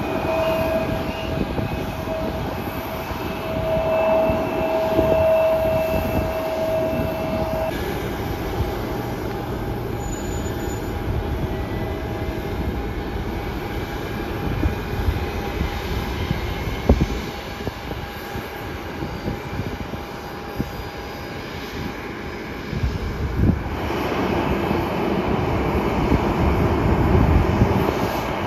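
Jet airliner engines. First a Delta regional jet rolls along the runway with a steady engine whine. After a change of scene, a Southwest Boeing 737's engines run as it pushes back and then taxis, the rumble louder near the end.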